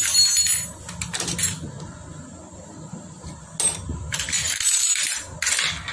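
Metal tools clinking and scraping against engine parts in short irregular bursts, one near the start, one about a second in and a longer cluster in the second half.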